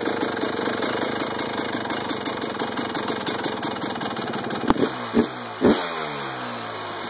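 Yamaha YZ250 two-stroke single-cylinder dirt bike engine idling with a rapid, even beat on its first run after a new top end. About five seconds in, it gives three sharp bangs and its beat slows and falls in pitch.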